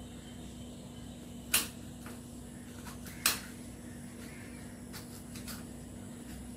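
Kitchen knife knocking on the counter as a vegetable is sliced: two sharp knocks about a second and a half apart, then a few fainter taps, over a steady low hum.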